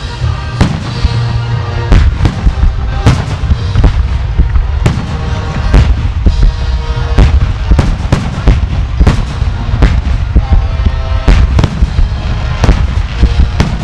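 Aerial fireworks shells bursting overhead: a rapid, irregular string of loud booms and cracks, about two a second, over a deep rumble.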